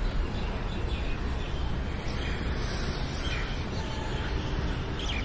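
Steady outdoor background noise with a low rumble, and a few faint bird chirps now and then.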